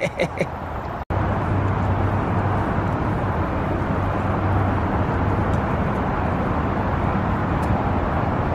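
Steady road traffic noise with a low hum, beginning abruptly about a second in after a brief gap.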